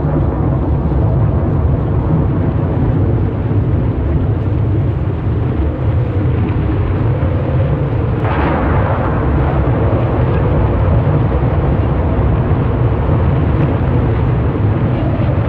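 Storm at sea: a loud, steady, deep rumble of wind and heavy surf, with a sudden crashing surge about eight seconds in that dies away over a couple of seconds.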